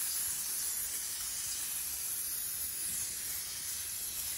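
Aerosol can of non-stick cooking spray hissing in one long, steady spray onto parchment paper lining a baking pan.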